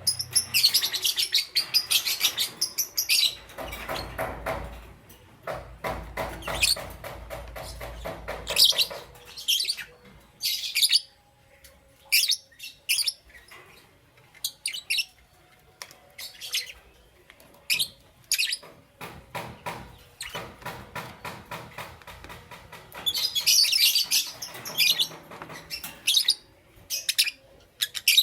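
Lovebirds chirping in shrill, scattered bursts, with two longer runs of fast, rapid chatter, one in the first third and one past the middle.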